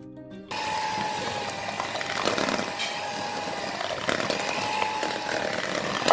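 Electric hand mixer switched on about half a second in, running with a steady motor whine as its beaters whip butter in a stainless steel bowl. A few sharp knocks of the beaters against the bowl.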